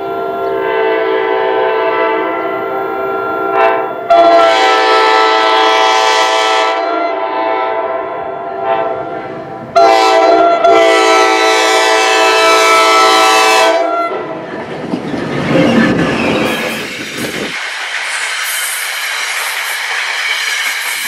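Commuter train's multi-chime air horn sounding three long blasts, each starting sharply. After the third blast the train rumbles past, its wheels clattering on the rails.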